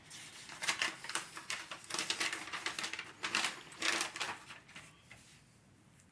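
Hard plastic toy parts being handled and fitted together: rapid clicking and rattling in several bursts, which stop about five seconds in.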